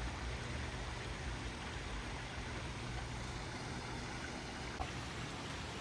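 Pool waterfall running at full flow: a steady, even rush of falling water.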